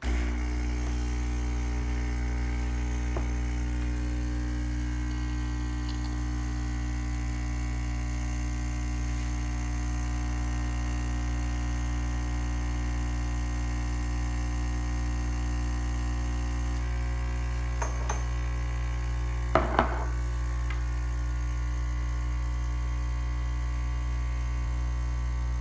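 DeLonghi EC155M espresso machine's vibratory pump buzzing steadily while it pulls a shot, with a couple of short clicks or knocks about three quarters of the way through.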